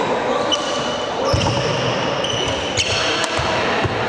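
Badminton doubles rally: rackets striking the shuttlecock with sharp pops, and players' sports shoes squeaking in short high chirps on the wooden court floor, echoing in a large indoor hall.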